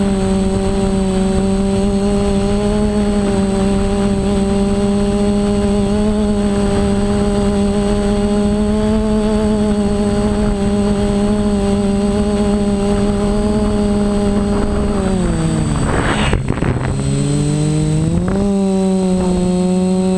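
Quadcopter's DJI 920KV brushless motors and propellers humming steadily, heard close from the onboard camera. About fifteen seconds in the pitch slides down as the throttle is eased off, then climbs back up a couple of seconds later.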